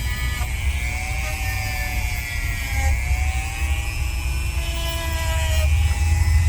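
Dremel rotary tool running at a low speed setting (between 2 and 3), its sanding pad grinding down a dog's toenails. The motor's whine dips and rises in pitch as the pad is pressed on and eased off the nail.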